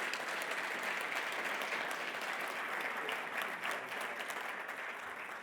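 Conference audience applauding steadily, many hands clapping, tapering slightly toward the end.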